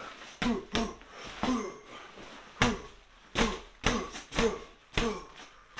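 Boxing-gloved punches thumping into a stuffed sleeping bag in its compression sack, about ten blows at an uneven pace, many with a short grunt that falls in pitch.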